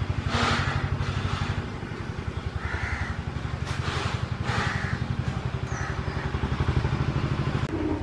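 Crows cawing several times over the steady, low, pulsing run of an engine idling.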